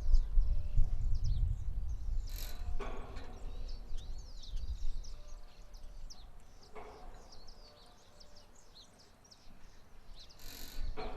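A windmill turning in gusty wind, giving a short creaking squeal about every four seconds. Wind rumbles on the microphone, dropping away for a few seconds past the middle, while small birds chirp throughout.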